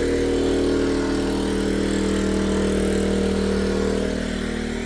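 Westinghouse iGen2550 inverter generator's small four-stroke engine running at a steady speed, its hum easing slightly near the end.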